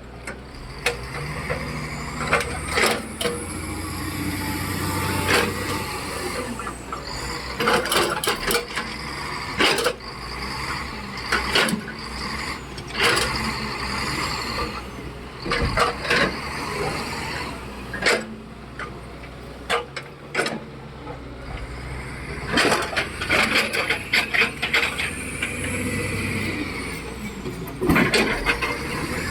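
Heavy diesel earthmoving machinery, a wheel loader and an excavator loading a dump truck, running with a steady low hum. Many sharp clanks and knocks come over it, bunched in places, as rock and the machines' steel strike one another.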